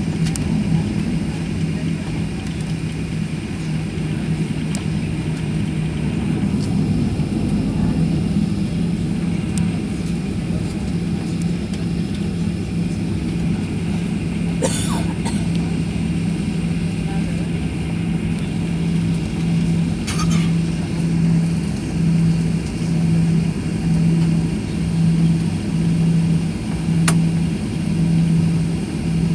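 Boeing 737-800's CFM56-7B jet engines at idle thrust, heard inside the cabin while taxiing: a steady hum with a low drone that begins to swell and fade about once a second later on. A couple of brief knocks or rattles sound near the middle.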